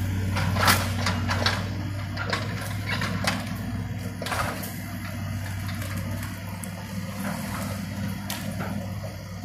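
Caterpillar tracked excavator's diesel engine running steadily while it tears apart a wood-frame house, with repeated cracks and crashes of breaking timber and falling debris. The sharpest crack comes under a second in; the cracks come thick in the first few seconds and thin out after.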